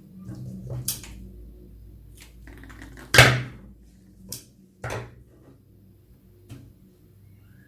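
Hands handling a toy slime and its plastic packaging: about five sharp clicks and crackles, the loudest about three seconds in.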